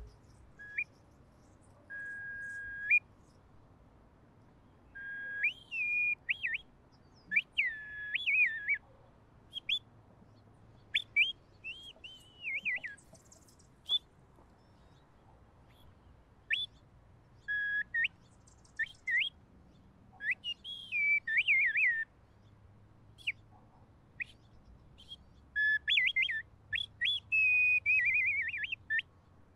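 A small handheld whistle blown in a string of short, clear whistled calls, some held on one note and many sliding and warbling like birdsong, with a longer warbling trill near the end.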